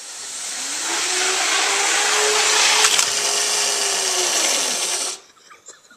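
HO-scale model diesel locomotive running on the track, its small electric motor whining over a steady rattle of wheels and gears. The whine rises in pitch as it speeds up, holds, then sinks again, with a sharp click about halfway through. The sound cuts off suddenly about five seconds in.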